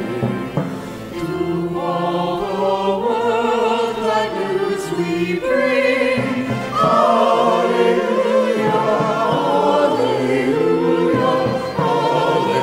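Church choir singing a hymn, the voices wavering with vibrato and growing louder about halfway through.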